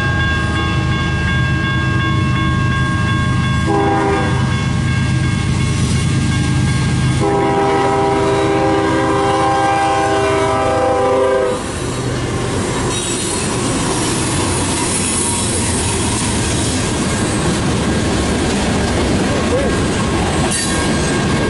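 CN freight train's diesel locomotives arriving, the air horn sounding in long blasts over a low engine rumble for about the first half. Then the horn stops and the freight cars roll past with steady wheel noise.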